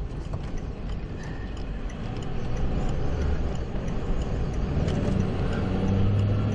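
Steady rushing noise of storm wind and rain around a chase vehicle, with its engine humming low underneath. It grows slowly louder, and the engine hum is plainer in the second half.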